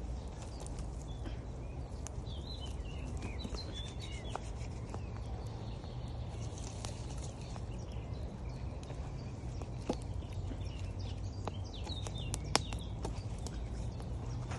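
Campfire wood crackling with scattered sharp pops, over a steady rush of flowing river water. A bird chirps in short bursts, about two seconds in and again near the end, around the loudest pop.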